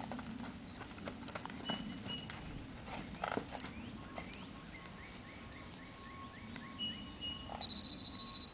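Hooves of a mare and her young foal moving over a dirt paddock, soft irregular thuds, against a low rumble of outdoor noise. Songbirds call over it, with a run of about eight quick, repeated chirps in the middle and high whistles and a trill near the end.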